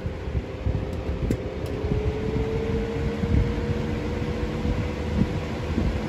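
A Lasko Cool Colors 20-inch box fan (model B20301) running: a steady rush of air with a low, uneven rumble and a thin motor hum. A faint click comes about a second in, after which the hum dips slightly in pitch and climbs slowly back over the next few seconds.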